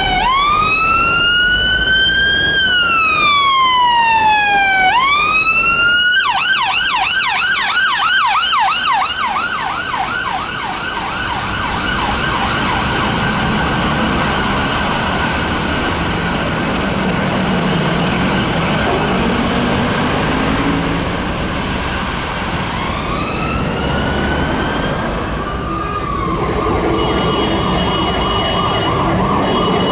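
Ambulance siren on a London Ambulance Service Mercedes-Benz van, sounding a slow wail and then switching to a fast yelp about six seconds in; the yelp fades over a few seconds into street traffic. Later a second siren rises in a new wail and holds on steady tones as fire engines approach.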